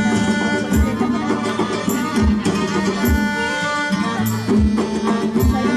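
Traditional Malay zapin music: a folk ensemble plays a sustained melody over a low drum beat struck about every three-quarters of a second.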